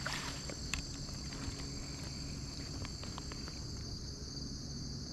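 Steady high-pitched chorus of insects such as crickets trilling without a break, with a few faint ticks as a spinning reel is cranked.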